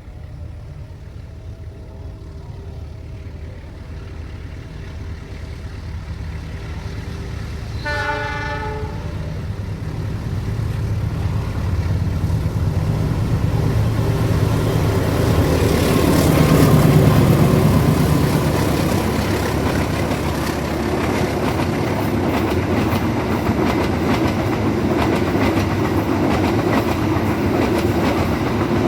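Diesel locomotive-hauled passenger train approaching and passing close by: the engine hum builds, the horn sounds once for about a second, the locomotive goes by loudest just past the middle, then the carriages roll past with a steady clickety-clack of wheels on rail joints.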